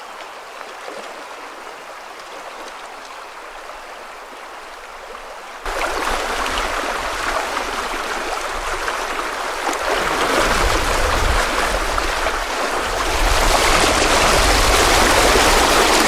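Fast shallow river rushing over a stony bed, a steady wash of water. About six seconds in it becomes suddenly much louder and closer, with a deep rumble, as the strong current churns around wading legs.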